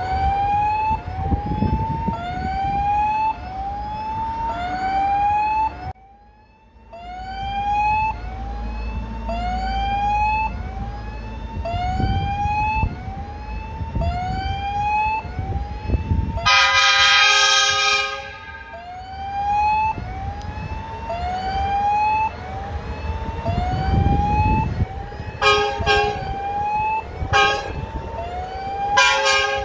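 Level crossing warning signal sounding a short rising electronic tone over and over, about one a second, over a low rumble of traffic. Just past the middle a loud horn blows for about two seconds, and three short horn blasts come near the end.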